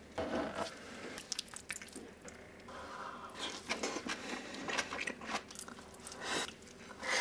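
Close-miked mukbang eating sounds: a string of sharp clicks and wet bites as a mouthful of sauced shredded boiled chicken is taken with chopsticks and chewed.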